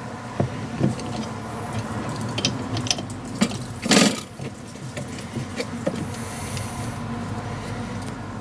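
A wheel nut being wound down over a stack of washers to draw a new wheel stud into an MGA rear hub: scattered metallic clicks and scrapes, with one louder clunk about four seconds in.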